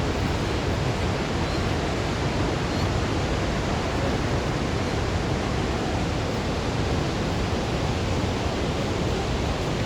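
Iguazu Falls' waterfall rushing: a loud, steady, even roar of falling water, fullest in the low range.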